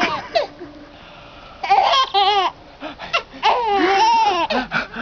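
Baby laughing in high-pitched bursts of giggles and squeals, with a lull of about a second after a short first burst.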